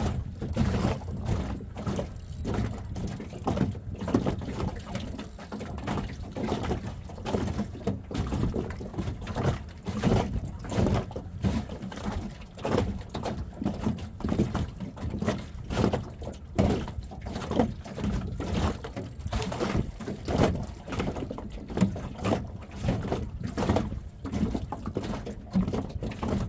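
Wind buffeting the microphone and water slapping against a small boat's hull, in uneven gusts and knocks.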